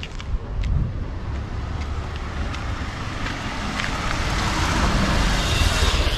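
Road traffic: a motor vehicle approaches and passes close by, its rushing noise building over the second half to a peak near the end, over a steady low rumble.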